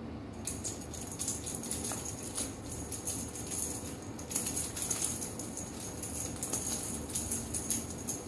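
A cat teaser wand toy rattling and jingling in irregular shakes as it is waved and batted at by a cat. It starts about half a second in, with louder shakes in the middle and near the end.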